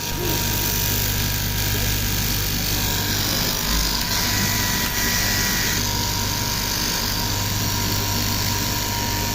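Sewing machine running steadily, a continuous mechanical whir over a constant low hum.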